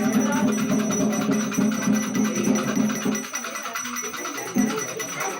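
Batuque ritual music: drums beating a rhythm with voices chanting. The music gets quieter about three seconds in.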